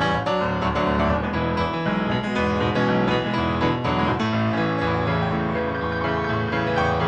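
Instrumental background music with piano.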